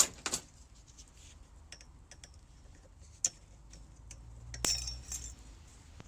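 Light metallic clicks and taps of fork parts and tools being handled on a workbench, with a sharp tick a little past three seconds in and a heavier knock and scrape about four and a half seconds in.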